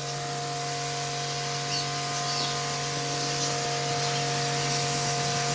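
Electric pressure-washer pump running with a steady hum while its jet sprays water, the hiss growing slightly louder. A few faint bird chirps sound over it.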